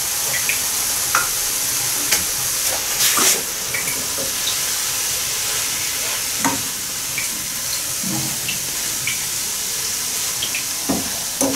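Chopped vegetables sizzling in oil in a frying pan on the gas stove, with a wooden spoon scraping and clicking against the pan as they are stirred.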